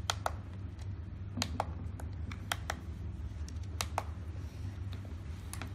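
Push buttons on a BYGD battery charger's front panel clicking as they are pressed to step it into maintenance mode. There are about four quick click-click pairs and a couple of single clicks, over a low steady hum.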